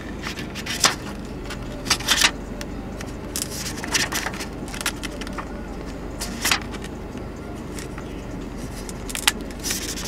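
Scattered small clicks and scrapes of a laptop SO-DIMM RAM module being handled and pushed into its memory slot, over a low steady hum.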